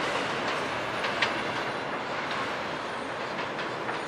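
New York City subway train running, a steady noise of wheels on rail with a single sharp click about a second in.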